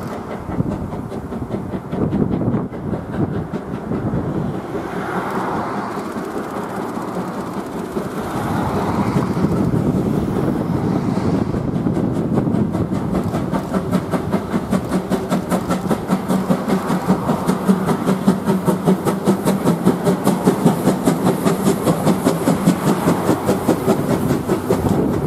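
The C11 325 steam tank locomotive works past with its exhaust beating. Then its passenger coaches roll by with a rhythmic clatter of wheels over the rail joints, which grows louder and more regular toward the end.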